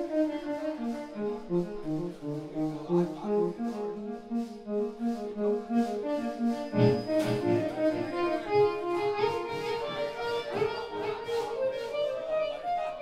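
Live blues-rock band playing with electric guitars, bass guitar and drum kit: a fast run of short lead notes stepping down and back up over drum and cymbal hits.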